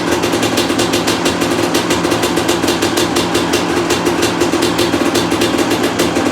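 Honda CR250's two-stroke single-cylinder engine running steadily at an even speed, just rebuilt and fitted with a new Lectron carburetor.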